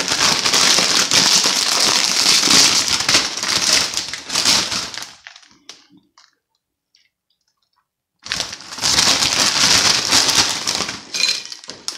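Doritos crisp packet crinkling as it is handled and opened: about five seconds of crackling, a pause of about three seconds, then about three more seconds of crinkling.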